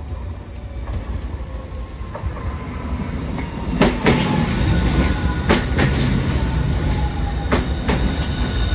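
Hiroden low-floor articulated tram passing close by, its low rumble growing louder from about three seconds in. Its wheels give three pairs of clacks over the rail joints, with a faint whine falling slowly in pitch.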